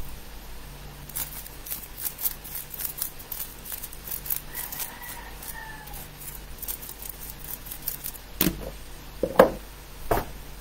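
A 3x3 speed cube clicking rapidly as its layers are turned fast in a timed solve, then three knocks between eight and ten seconds in.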